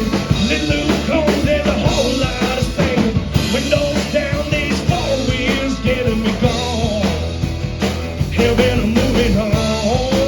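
Rock and roll song played by a full band, with drum kit hits keeping a steady beat and a lead melody line bending up and down in pitch over it.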